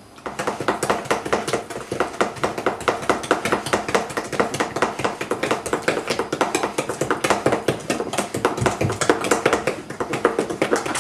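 Cake batter being beaten by hand with a utensil in a stainless steel mixing bowl: a rapid, even tapping of the utensil against the metal bowl, several strokes a second.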